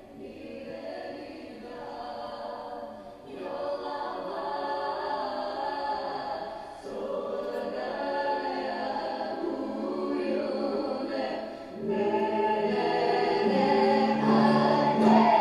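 Recorded music for a Russian Gypsy dance: a choir of voices singing, in phrases with short breaks every three to four seconds. From about twelve seconds in it grows louder over a steady held low note.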